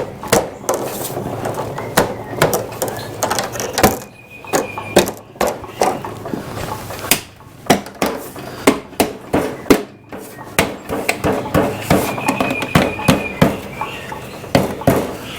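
New plastic trim strips being pressed and clicked into place on a Vespa GTS scooter: a long run of sharp, irregular clicks and taps, with two brief high squeaks of plastic.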